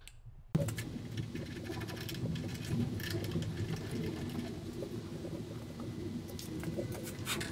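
Feed handles of a benchtop drill press being screwed by hand into the spindle hub, with light, scattered metal clicks and scraping. A steady low hum starts suddenly about half a second in and sits under them.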